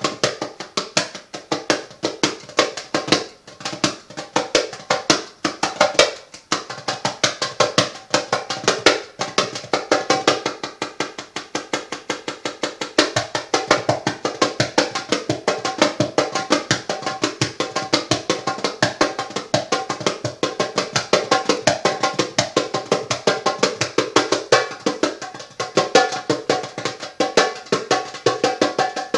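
Hand drums played in a quick, steady rhythm of dense strikes that carries on without a break.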